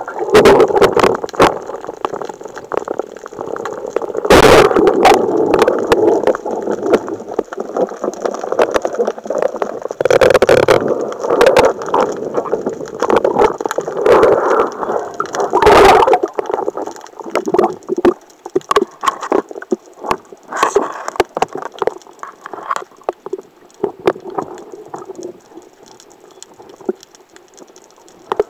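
Underwater sound of a diver's camera moving through water: a steady rush and gurgle of water against the housing with many clicks and a few loud knocks, at about four, ten and sixteen seconds. It gets quieter over the last third.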